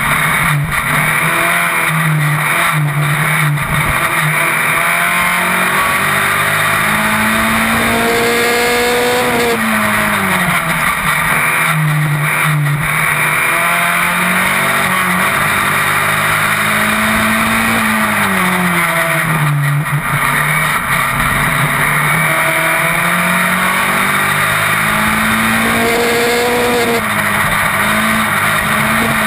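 Open-wheel single-seater race car's engine at racing speed, heard onboard: revs climb in steps through upshifts, fall away twice, about nine and nineteen seconds in, then climb again through the gears.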